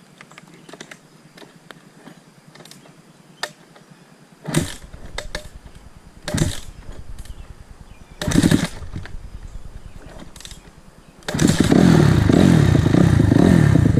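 2006 Honda CRF250R four-stroke single being kick-started: three short bursts as it turns over and sputters without catching, then about eleven seconds in it fires and runs loudly. The bike is hard to start after its rebuild.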